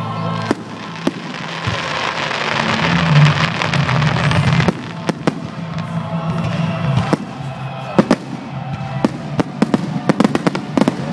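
Fireworks display with music playing: a dense rushing hiss swells over the first few seconds and cuts off sharply, then the sharp bangs of shell bursts come quicker and quicker toward the end.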